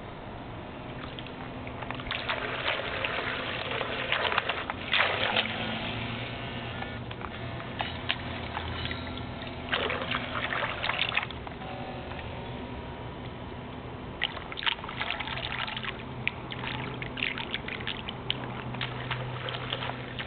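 Water splashing and trickling on a swimming pool, louder in several bursts, as a battery-powered radio-controlled boat runs across it, with a low steady hum underneath.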